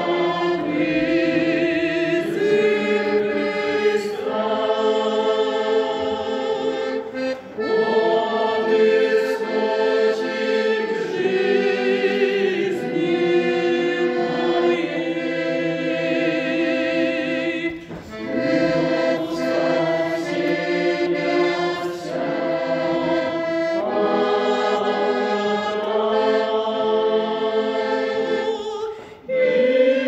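Accordion accompanying a church choir singing a slow hymn in long held phrases, with brief breaks between phrases about 7, 18 and 29 seconds in.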